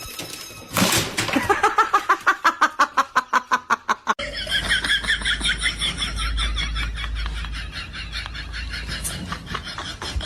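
People laughing hard in quick, rhythmic bursts. After an abrupt cut about four seconds in, a higher-pitched laugh follows over a low rumble.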